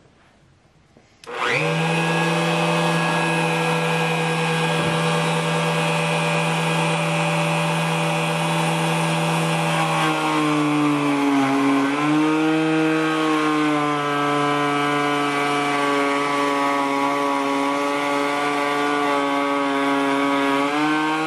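A table-mounted wood router starts up about a second in, its whine rising quickly to full speed, then runs at a high steady pitch. Twice the pitch sags and recovers as the bit cuts into a hardwood cutting board fed along the fence, the motor slowing under load.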